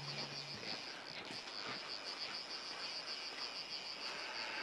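Steady rush of river water with a high, rapid, evenly pulsing chirp running through it, insect-like. A low hum cuts off about half a second in.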